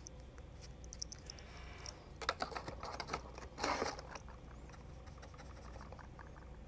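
Faint clicking and handling noise of paint tubes and a brush being handled, with scattered small clicks and two brief scrapes about two and a half and three and a half seconds in.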